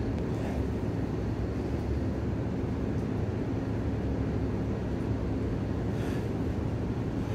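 Steady low mechanical hum, like running machinery or ventilation, with a couple of faint short puffs of breath.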